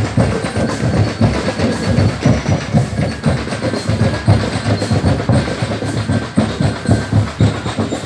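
Marching drum band in a street parade playing a fast, steady rhythm on large painted barrel drums, many strokes in quick succession.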